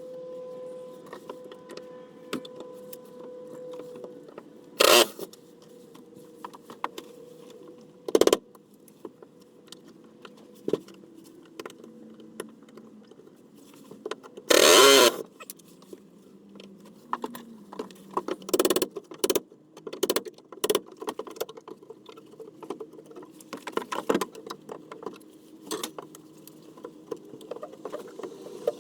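Hand-tool work on a wooden boat's doghouse: scattered clicks, taps and rattles of tools and screws against wood, broken by a few short loud noisy bursts, the longest about halfway through.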